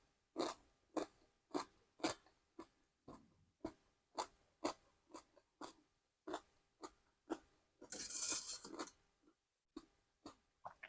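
Close-miked chewing of crunchy food, short crisp crunches about twice a second, with one longer, louder crunch about eight seconds in.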